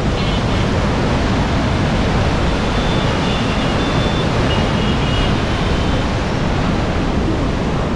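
Water pouring through an open sluice gate, a loud steady rush.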